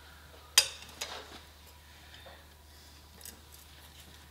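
A sharp metal-on-metal clink about half a second in and a softer one with a short ring about a second in, then a few faint ticks: steel tools and sheet metal knocking together during metalwork at the bench.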